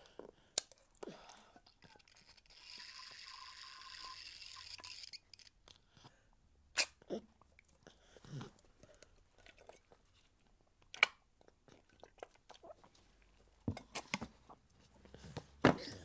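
A toddler's mouth noises: scattered wet clicks and smacks like chewing or mouthing. About two and a half seconds in, a soft hiss lasts for about two and a half seconds.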